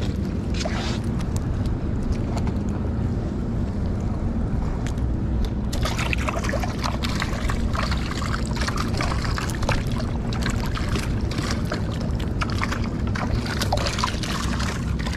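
Boat engine running with a steady low hum while water splashes and sloshes, the splashing growing busier about six seconds in.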